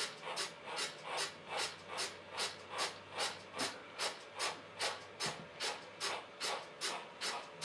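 Steam locomotive chuffing from a model railway DCC sound decoder: an even beat of short hissy exhaust beats, about two and a half a second, as the locomotive hauls a goods train.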